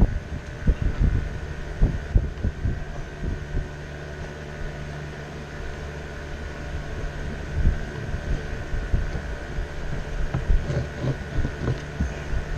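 An electric fan hums steadily while irregular low knocks and bumps come from the gear shift lever control box being worked into the boat's console.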